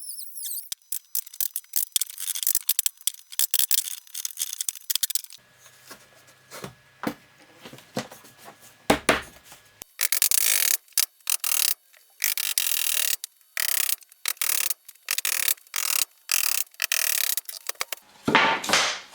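Hand saw cutting a wooden trim board to length: a run of even back-and-forth strokes, about one and a half a second, in the second half. A single knock comes about nine seconds in and a louder thud near the end.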